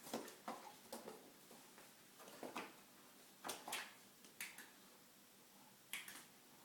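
Miniature bull terrier sniffing as it searches with its nose: short, sharp sniffs in irregular clusters, some in quick pairs, with a pause of over a second before a last sniff near the end.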